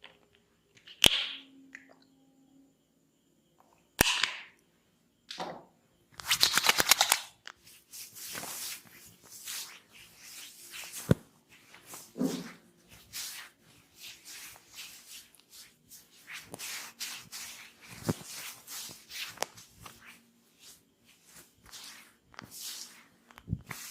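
Tok Sen wooden mallet striking a wooden wedge: single sharp knocks several seconds apart and, about six seconds in, one quick run of rapid taps, with softer rustling between.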